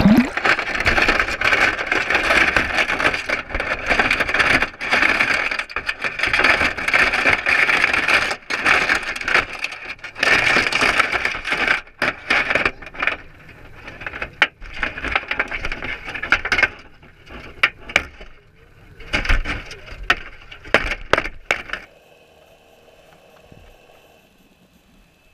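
Crab net being hauled and handled at the water's surface: a loud wash of water noise with many sharp knocks and clatters from the net's wire frame, thinning out after about sixteen seconds. About twenty-two seconds in, the sound drops abruptly to a faint, muffled hush as the net goes back under water.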